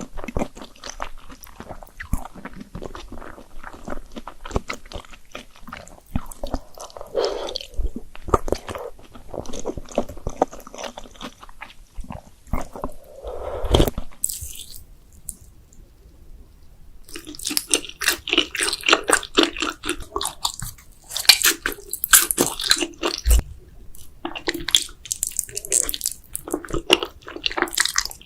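Close-miked mouth sounds of eating Korean-style instant noodles: chewing and biting, with wet, clicky sounds, a short quieter pause about halfway, then busier chewing.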